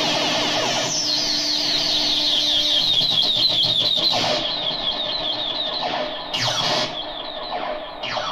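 Homemade dub-siren-style twin oscillator run through effects pedals: a rapid train of short falling electronic bleeps over a sustained tone, then several long downward pitch sweeps in the second half.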